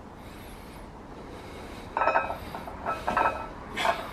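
Steady room hiss, then from about two seconds in a loaded barbell clinks and rattles about once a second, a metallic ring with each rep of a warm-up chest press.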